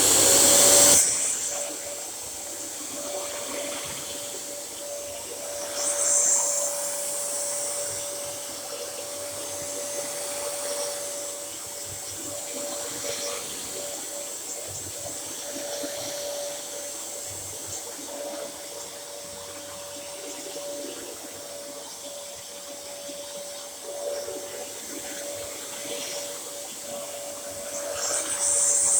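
Dyson DC07 Allergy bagless upright vacuum cleaner switched on, its motor starting with a loud surge and then running with a steady whine over a rushing of air. It swells louder about six seconds in and again near the end.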